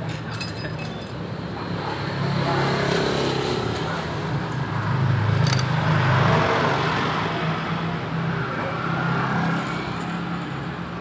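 Motor vehicle engine running nearby, a steady low hum that swells about halfway through and eases off again, with a few faint clicks.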